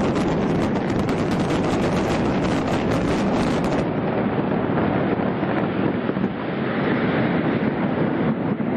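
Building implosion: a rapid crackle of demolition charges for roughly the first four seconds, giving way to a steady heavy rumble, with wind buffeting the microphone throughout.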